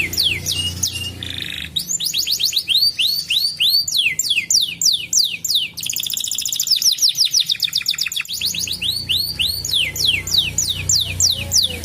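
Domestic canary singing: a fast song of repeated whistled notes that sweep downward, several a second, in changing phrases, with a very rapid trill of short notes about six seconds in. A low hum lies under it except for a few seconds in the middle.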